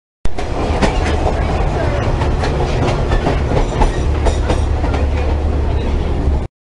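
Inside a moving passenger train car: a steady low rumble with irregular clicks and rattles of the running gear and coach fittings. It starts abruptly a moment in and cuts off sharply just before the end.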